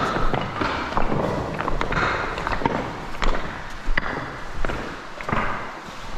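Footsteps on a rocky cave floor: a string of irregular crunching steps and knocks over a steady rushing noise.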